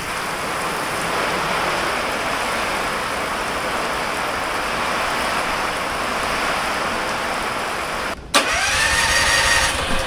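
Heavy thunderstorm rain pouring down, a steady loud hiss. About eight seconds in it cuts off suddenly and a John Deere riding mower's engine is cranked over by its starter; this mower cranks but won't start, and it is not pulling fuel through the filter.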